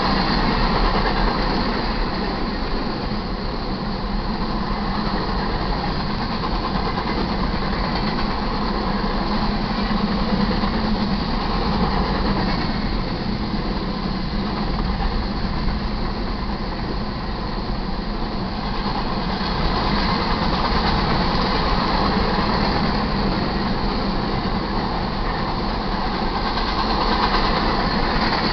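Freight train of grain hopper cars rolling steadily past, with continuous wheel and rail noise that swells and eases slowly.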